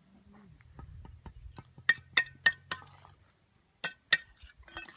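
Steel bricklaying trowel striking bricks with sharp, ringing metallic clinks: four quick strikes about two seconds in, then two more near the end.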